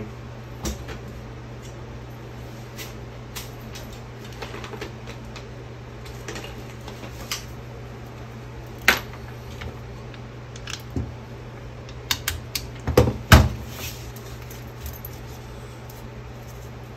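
Rifle sling hardware being handled: scattered light clicks and rattles, with a few louder knocks about twelve to thirteen seconds in, over a steady low hum.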